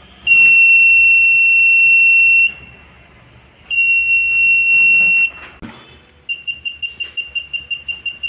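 Electronic alarm buzzer of a DIY laser tripwire intruder alarm, sounding as the beam is broken. It gives a long high-pitched steady tone, a shorter second one, then switches to rapid beeping about four to five times a second.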